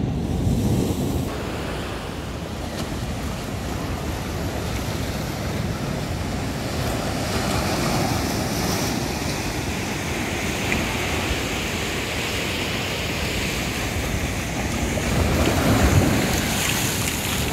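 Atlantic surf breaking and washing over a rocky shore, a steady rush of water, with one wave crashing and spraying loudest near the end.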